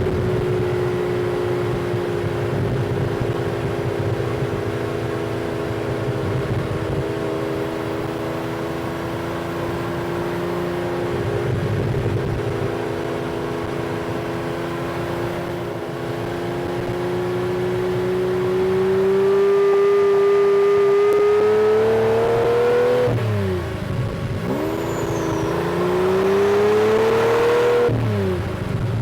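Lamborghini Diablo replica's engine running while driving: a steady drone that slowly sinks, then revs up twice in the last third, falling away sharply after each climb.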